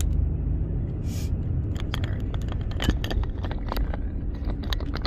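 Car cabin road noise while driving, a steady low rumble, with scattered clicks and scrapes from the phone being handled.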